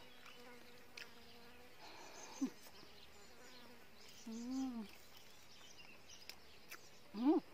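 A flying insect buzzing steadily for about the first two seconds, then a short hummed "mm" from the person eating about four seconds in, with a few faint ticks.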